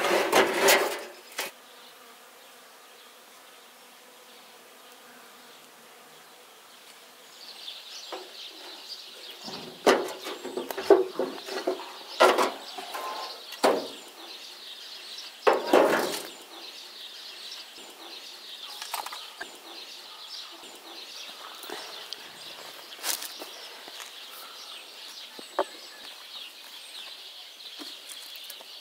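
A rusty metal sheet clanks loudly against the mouth of a wood-fired clay oven in the first second. Later come scattered knocks and clatter of metal baking trays over a steady high buzz.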